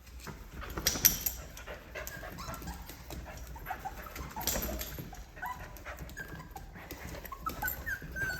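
Six-week-old Mini Australian Labradoodle puppies whimpering and squeaking: many short, high whines that bend up and down in pitch. Two brief noisy bursts come about one second and four and a half seconds in.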